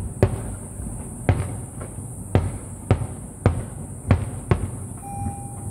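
Fireworks aerial shells bursting: a series of sharp booms, about eight of them, coming irregularly every half second to a second.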